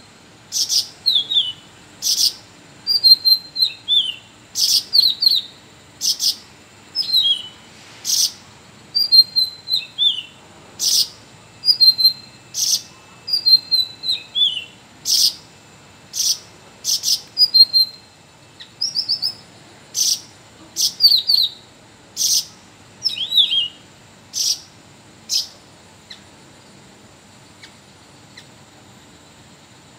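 Red-whiskered bulbul singing: short, sharp phrases, each with a quick whistle sliding down in pitch, repeated about once a second and stopping near the end.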